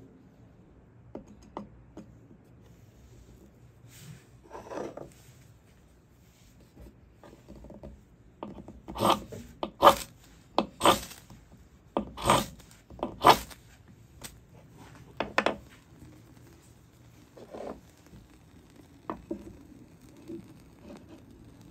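The spine of a Kephart bushcraft knife scraped hard down a ferrocerium rod, throwing sparks onto fatwood shavings. There are about five loud scrapes roughly a second apart near the middle, with a softer scrape before them and a few lighter ones after.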